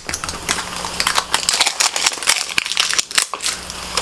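Ornament packaging being handled: irregular rustling, crinkling and light tapping of cardboard boxes and wrapping.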